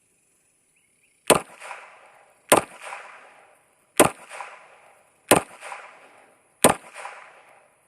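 Five gunshots fired at a steady pace, about one every 1.3 seconds, each a sharp crack followed by a short echoing tail.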